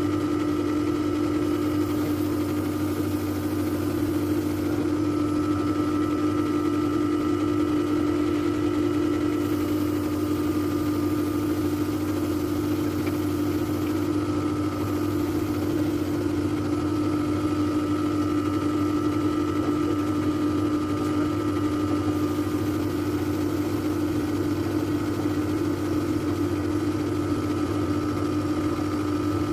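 Panasonic 1/2 PK split air conditioner's outdoor unit running during R22 refrigerant charging: a steady low compressor hum, with a fainter higher whine that fades in and out every few seconds.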